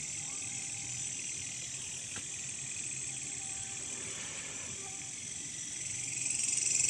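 Steady high-pitched insect chorus, swelling louder near the end, over a faint low hum.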